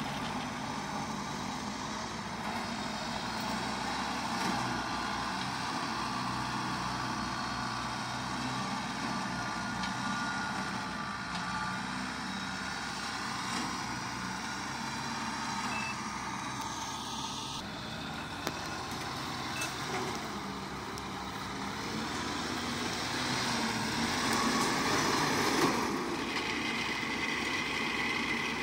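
Diesel engines of tracked rice combine harvesters running steadily under load, as the machines work to pull a combine that is stuck in the mud. The engine noise swells about 24 seconds in and drops back about two seconds later.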